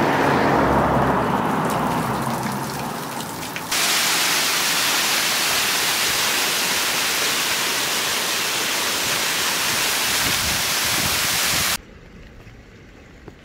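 Waterfall pouring down a rock face: a loud, steady rush of water that starts suddenly a few seconds in, after a fading rushing noise, and cuts off abruptly near the end to a much quieter background.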